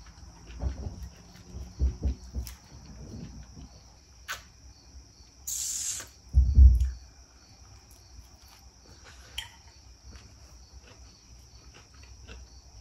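Chewing and crunching of a salad with walnuts, carrots and broccoli: irregular crisp crunches and soft low thumps. Around six seconds in there is a short hiss, then a loud low thump. A steady high trill runs in the background.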